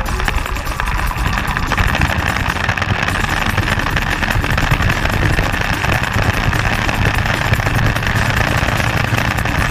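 Motorcycle engine running steadily while riding along at speed, mixed with a steady rush of wind noise on the microphone.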